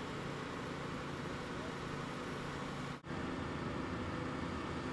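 Engines idling steadily, a low hum under a constant hiss. The sound drops out for an instant about three seconds in.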